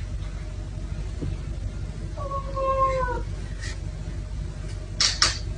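A domestic cat meows once, a single drawn-out call about two seconds in, over a steady low hum. Two short hissy noises follow near the end.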